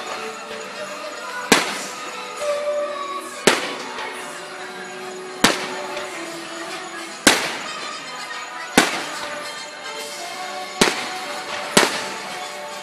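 Fireworks going off: about seven sharp bangs a second or two apart, each fading away, with music playing underneath.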